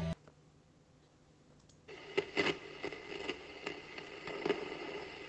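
Music stops abruptly, and about two seconds of silence follow. Then the faint crackle and scattered pops of a stylus riding a vinyl record's surface begin, over a low steady hum.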